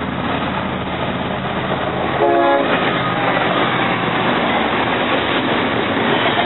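Train running with a steady rumble, and a short horn blast about two seconds in.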